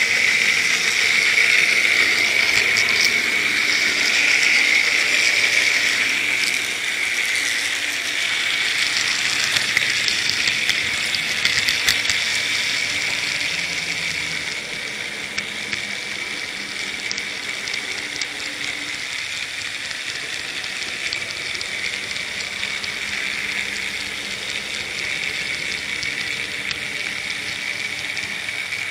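N gauge model train running along the track, heard from a camera riding on it: a steady whirring hiss from the motor and wheels, with a few light clicks over the rails.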